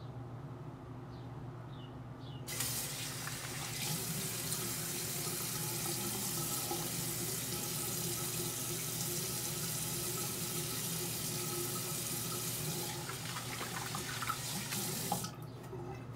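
Bathroom sink tap turned on about two and a half seconds in and left running, water splashing as the face is rinsed of shaving lather between passes; the tap is shut off suddenly about a second before the end.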